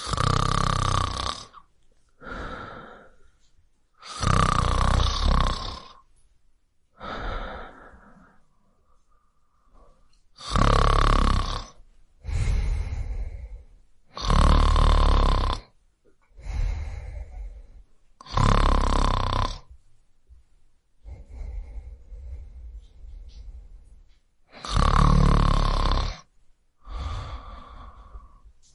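A man snoring: loud rasping snores alternating with softer breaths, one loud snore every three to four seconds.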